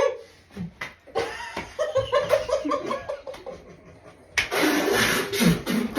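People laughing, some of it muffled. About four and a half seconds in, a sudden loud, noisy burst cuts in with a run of sharp bursts.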